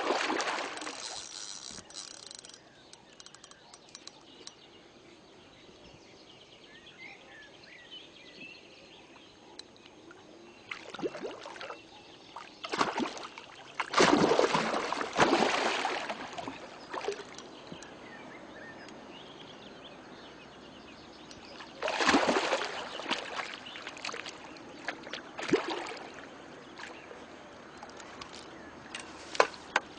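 Hooked grass carp splashing and thrashing at the surface while being played on rod and line. The splashes come in separate bursts: one at the start, a longer bout around the middle, another about two-thirds through and a short one near the end.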